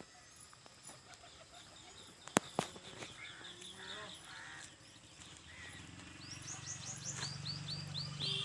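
Birds chirping, ending in a quick run of short, rising, high-pitched chirps, about four a second, over the last two seconds. Two sharp clicks come about two and a half seconds in.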